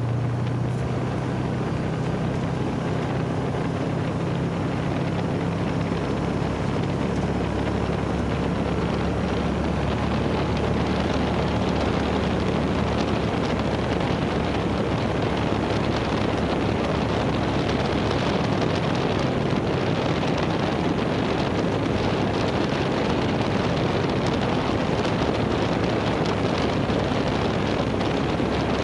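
UTV engine running steadily under way, with wind rushing over the microphone. About halfway through, the engine's low note sinks under the wind rush.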